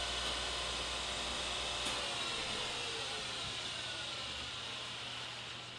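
Reid surface grinder's spindle and grinding wheel coasting down after being switched off: a steady whine that slowly falls in pitch and fades, with a low hum dropping out about two seconds in.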